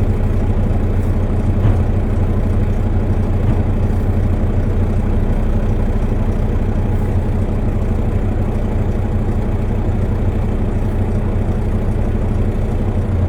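A heavy engine running steadily at idle, a deep even hum that holds the same speed throughout.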